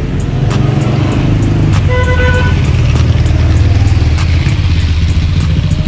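A car engine running loud and close, its low note holding steady. A short high-pitched tone sounds for about half a second around two seconds in.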